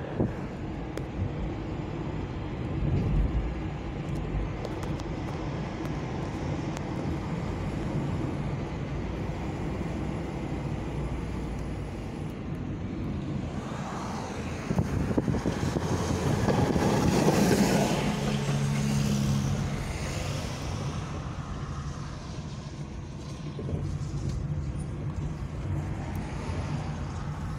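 Road noise heard inside a moving car: steady tyre and engine rumble on a rough city road with tram rails. About halfway through it swells louder for several seconds as other traffic passes.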